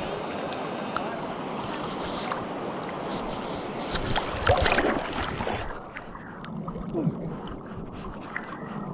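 Steady rushing wash of river water, with a louder stretch of splashing and sharp knocks about four to five seconds in.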